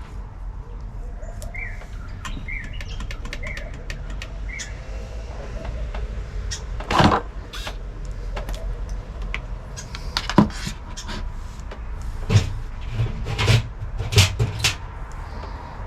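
A string of sharp clicks and knocks, with several louder thumps in the second half, over a steady low rumble. A bird chirps four times in the first few seconds.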